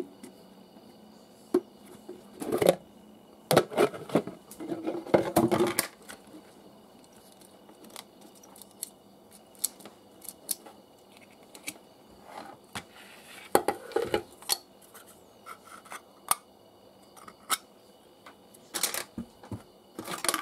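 Hands handling the parts of a homemade cotton candy machine: a plastic container, a plastic colander, a salvaged blender motor with its switch board, and a metal cap. Irregular clicks, knocks and plastic rattles, busiest in the first six seconds and again in short clusters later.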